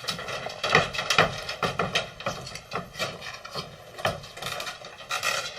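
Irregular light knocks and scraping, about two or three knocks a second.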